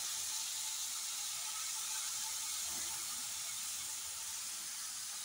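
Freshly added chopped tomatoes sizzling in hot oil and fried onion-spice masala in a pan: a steady frying hiss that eases off slightly.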